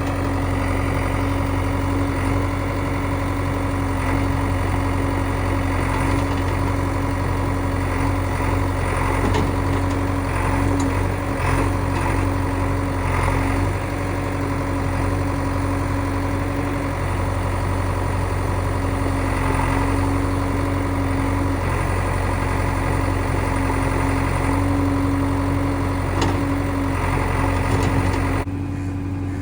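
The diesel engine of a JCB 3DX backhoe loader runs steadily while working, with a steady whine that swells at times and a few faint knocks.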